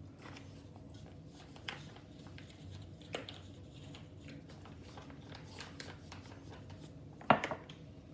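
Quiet room with light handling noises, a few small clicks and one sharper knock near the end.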